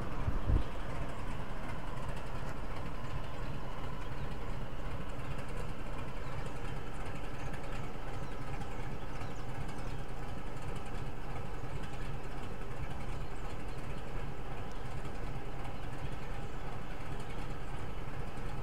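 Diesel locomotive engine running steadily: a continuous, even drone. A brief low thump about half a second in.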